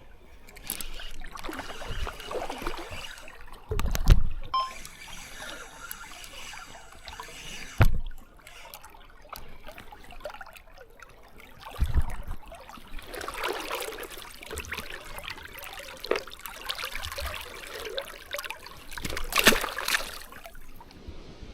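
Shallow river water trickling and splashing, with a few short low thumps spread through.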